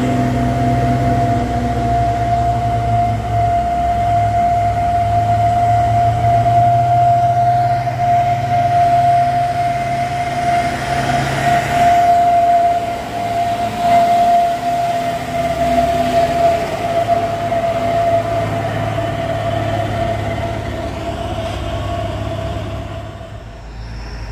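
A heavy truck's engine labouring up a steep climb: a low, steady drone with a single high whine held over it, which fades out near the end.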